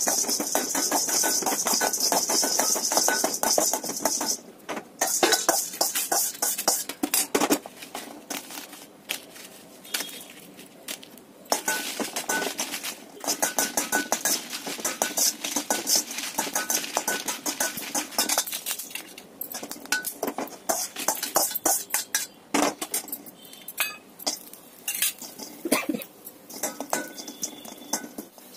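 A metal ladle stirring and scraping around a stainless steel kadai, dry-roasting lentils and then dried red chillies without oil: fast, busy clinking and scraping of steel on steel, with the dry pieces rattling across the pan, broken by a few short pauses.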